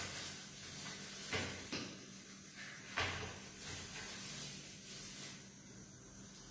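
A few light clicks and knocks from handling a can of sweetened condensed milk and a plastic container lid, three sharp ones in the first three seconds, over a faint steady hiss.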